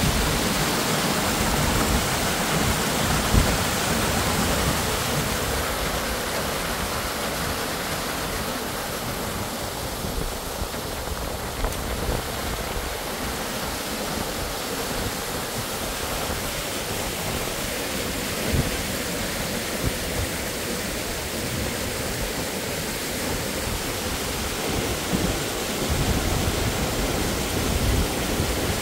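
Steady rushing of a waterfall, a constant full noise of falling water with an uneven low rumble underneath.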